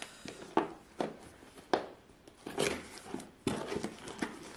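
Packaging of a boxed toy train being opened and handled: a series of short rustles and knocks, with a longer scraping rustle near the end.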